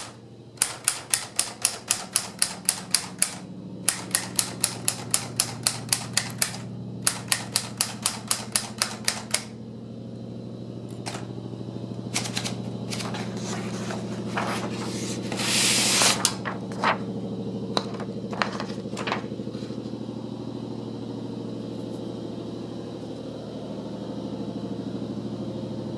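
Sears Tower Chieftain III typewriter being typed on fast, about five or six key strikes a second, in three runs with short pauses, stopping about nine seconds in. Then come a few scattered clicks and a brief loud rasping noise about fifteen seconds in, over a steady low hum.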